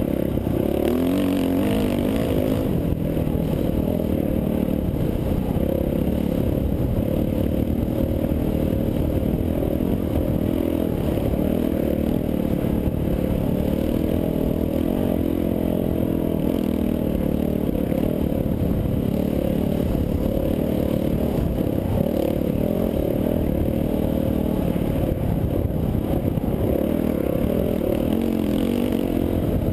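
Off-road dirt bike engine running under way, its pitch rising and falling with the throttle.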